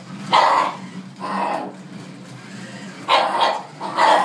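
Jack Russell terrier barking in play, four short barks with pauses between them.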